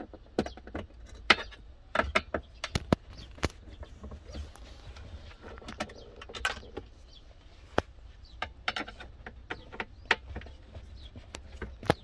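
Irregular sharp clicks and knocks of a screwdriver working against the plastic panels and grille of a car's centre-console cool box as it is taken apart, over a low steady rumble.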